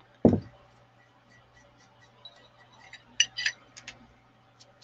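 A single low thump on the tabletop just after the start, then a few sharp clicks about three seconds in as a paintbrush is worked in a jar of black gesso. A fan hums steadily underneath.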